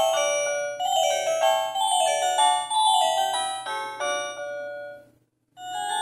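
Philips E218 feature phone playing one of its default ringtones through its loudspeaker: a melody of quick pitched notes that stops about five seconds in and starts over after a half-second gap as the tone loops.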